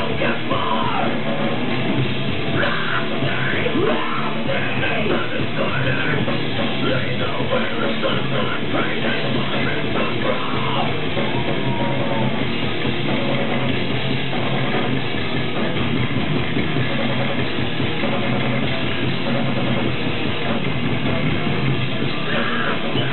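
Heavy metal band playing live, a loud, dense wall of sound that runs without a break.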